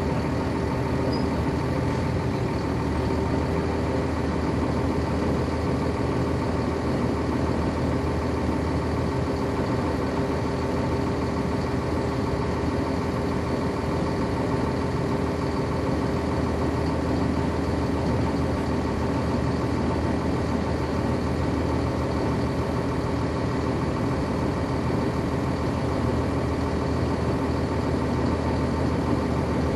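Cummins ISC inline-six diesel engine of a 1999 NovaBus RTS transit bus, heard from inside the bus, running steadily at an even pitch that does not change.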